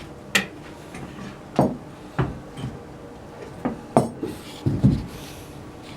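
A series of irregular sharp knocks and clatters of hard objects being handled, about nine in all, the loudest around the middle and near the end.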